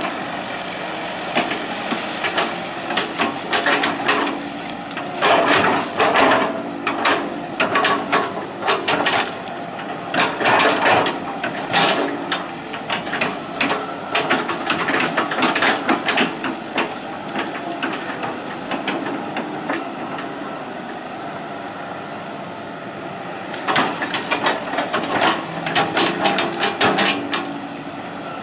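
Hitachi EX120 hydraulic excavator at work: its diesel engine running steadily under repeated metallic clanks and rattles from the bucket and tracks, coming in bursts, easing off for a few seconds about two-thirds through before picking up again.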